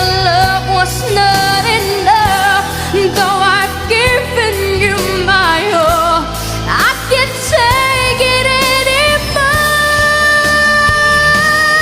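Pop ballad music: a wavering melodic lead line over a steady bass, settling into one long held note in the last few seconds.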